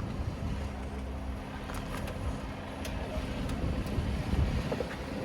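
Jeep engine running at low revs while the vehicle crawls over rock. It makes a steady low hum, with a few faint clicks.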